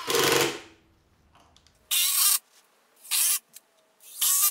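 Cordless drill driving screws into a wooden vise jaw. One burst at the start, then three shorter trigger pulses about a second apart as the screws are run in and seated.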